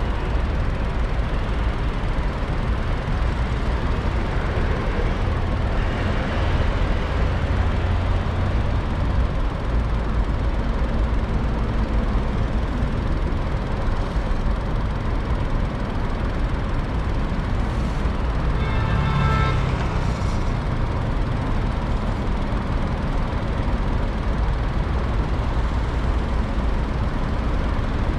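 Steady road and engine noise of a car driving in city traffic, with a brief pitched tone, such as a horn or signal, about two-thirds of the way through.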